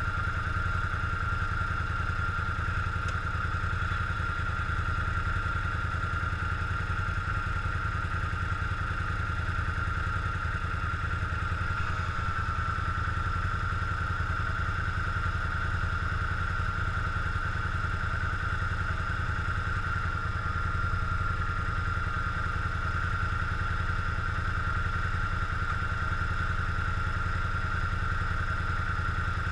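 Quad bike (ATV) engine idling steadily, close up, with a constant high-pitched whine over the low engine sound.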